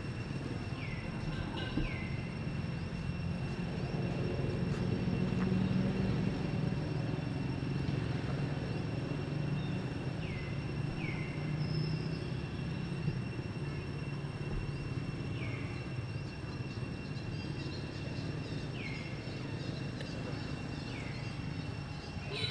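Outdoor ambience: a steady low rumble with a faint steady high whine, and short falling chirps every few seconds, some in pairs.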